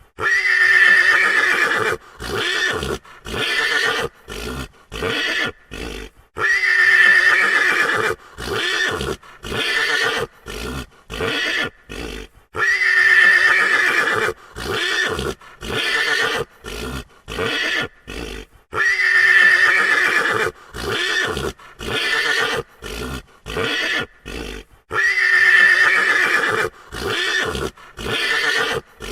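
Frightened horse whinnying: a long, high neigh followed by a run of short, separate sounds. The same sequence repeats about every six seconds, five times over.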